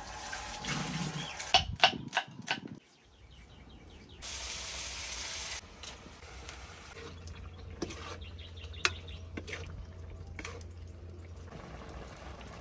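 Kitchen food-prep sounds: a few sharp knocks and clicks, a short burst of running water that starts and stops abruptly, then light handling clicks over a low steady hum.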